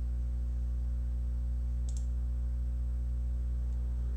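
Steady low electrical hum with a stack of even overtones, with one short, sharp click about two seconds in.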